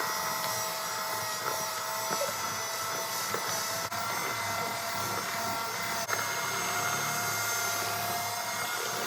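Electric mixer running steadily as it beats cake batter, a motor whine with a couple of brief dips.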